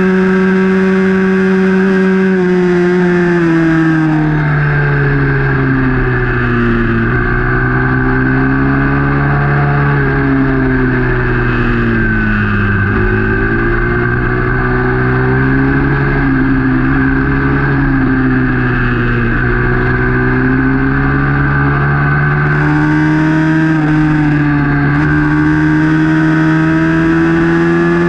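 Onboard sound of a small youth racing motorcycle's engine at race pace. The engine note drops about four seconds in and dips lowest near the middle as the bike leans through bends, then climbs back up near the end as it accelerates onto the straight.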